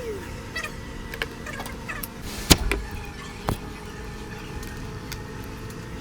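Scattered light clicks and taps of small repair tools working on a smartphone's charging port, over a steady low hum. There is a sharp click about two and a half seconds in and a smaller one a second later.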